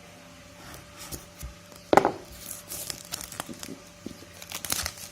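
Phone box packaging being cut and pulled off by hand: crinkling and tearing rustles with scattered clicks, and one sharp, loud knock about two seconds in.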